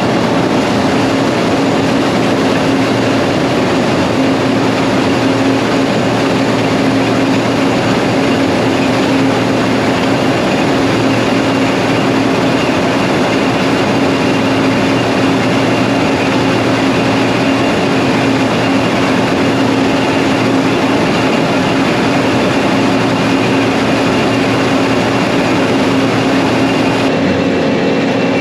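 Harvest machinery running at a steady, unchanging drone, with one steady hum through it.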